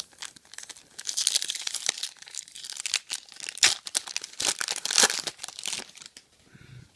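A Topps Chrome card pack wrapper crinkling and crackling as it is torn open, a dense run of sharp crinkles lasting about five seconds.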